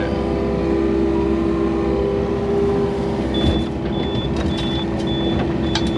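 Yanmar excavator's diesel engine running steadily, heard from inside the cab as the bucket lifts a load of soil. From about halfway through, a high electronic beep repeats about twice a second.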